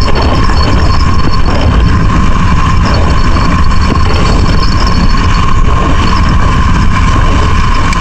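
Strong wind buffeting the microphone: a loud, steady rumble that covers everything else.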